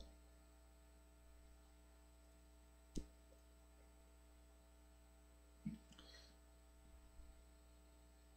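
Near silence: faint steady hum and room tone on the audio line, broken by one sharp click about three seconds in and a faint brief sound near six seconds.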